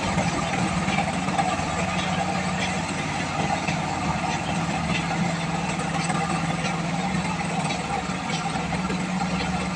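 Combine harvester engine running with a steady, unchanging hum.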